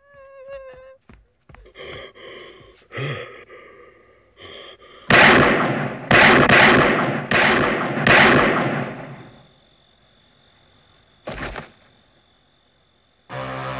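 Whimpering and gasping, then about five handgun shots fired in quick succession, each ringing out, and a single sharp thud a few seconds later. Scary theme music begins at the very end.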